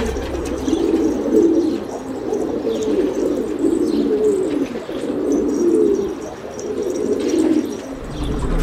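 Domestic pigeons cooing, low coos following one another about once a second.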